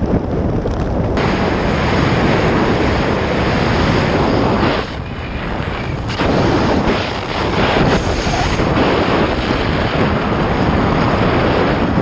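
Wind rushing over a helmet camera's microphone as a skydiver descends under an open parachute canopy: a steady loud rush that eases briefly about five seconds in.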